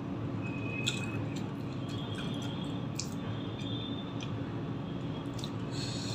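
Close-miked eating sounds: wet squishes, smacks and small mouth clicks from chewing, and near the end fingers squelching a boiled egg in curry gravy, over a steady low hum.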